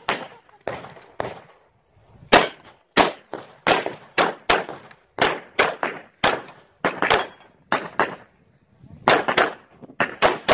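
Pistol shots fired in quick succession, mostly in fast pairs, with short pauses about two seconds in and near the eight-second mark. Some shots are followed by the high metallic ring of steel plate targets being hit.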